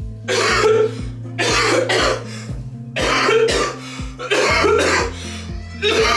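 A man coughing and hacking hard in five loud bursts, about one every second and a half, faking a fit of coughing up blood. Background music with a steady beat plays underneath.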